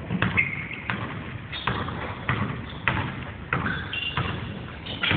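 A basketball being dribbled on a hardwood gym court, regular thuds about every two-thirds of a second, with short high squeaks of sneakers on the floor.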